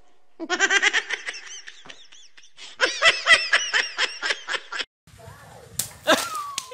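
A young child giggling in two long runs of quick laughter. About six seconds in, a water balloon bursts with a sharp splash of water, followed by a short cry that falls in pitch.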